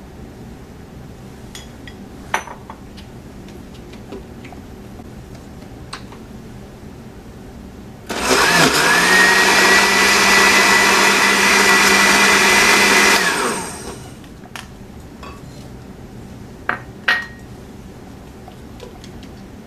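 Electric countertop blender motor starting, running at a steady high speed for about five seconds, then switching off and spinning down. A few light clicks of handling come before and after.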